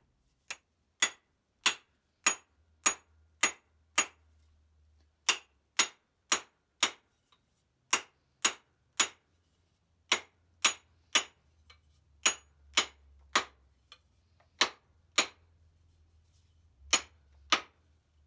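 Sharp taps of a small cross peen joiner's hammer striking, in runs of two to six blows a little under two a second, with short pauses between the runs.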